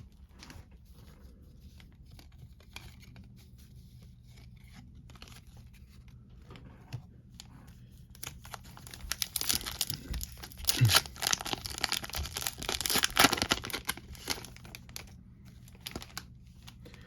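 Foil wrapper of a 2021 Topps Fire baseball card pack being torn open and crinkled: a dense crackling run of several seconds starting about halfway in, after faint scattered handling clicks.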